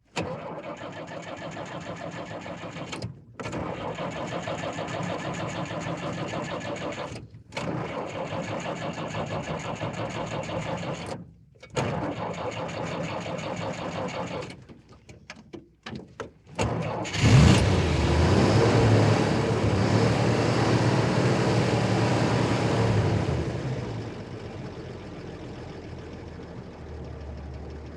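Army truck engine being started: the starter cranks in four spells with short pauses between them, sputters briefly, and the engine catches with a loud burst about seventeen seconds in. It then runs steadily and settles to a quieter idle.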